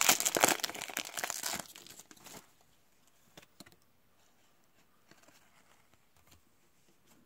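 Shiny foil wrapper of a trading card pack crinkling loudly as it is torn open and pulled off the cards. It dies away about two seconds in, leaving only a few faint taps.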